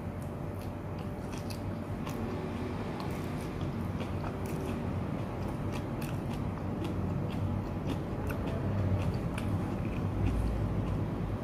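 Close-up chewing and biting of urap sayur, blanched vegetables and bean sprouts in spiced grated coconut, eaten by hand, with many small irregular crisp clicks and crunches.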